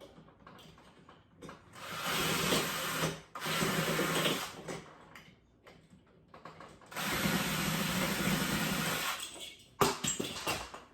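Power drill running in three bursts, two of about a second and one of about two seconds, backing out a doorknob's screws. A couple of sharp knocks come near the end.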